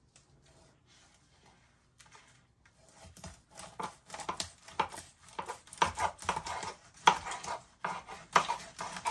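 Kitchen knife sawing through the belly of a whole salmon on a cutting board: short repeated cutting strokes that begin about three seconds in and grow louder.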